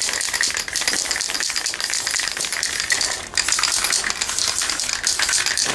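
Aerosol spray paint can hissing as it sprays in two long passes, with a short break about three seconds in, then cutting off.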